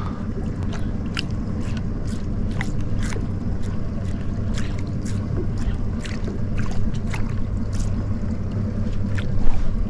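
Steady low hum of a boat's engine idling, with scattered light clicks and ticks over it.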